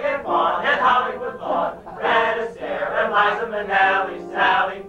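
A musical-theatre ensemble singing together in chorus, in short chanted phrases of a show tune.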